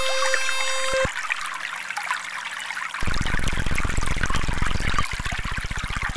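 Trickling water mixed with synthesized tones: a steady tone with overtones and a few clicks for the first second, then a low, fast, regular pulsing hum from about three seconds in that shifts rhythm near five seconds.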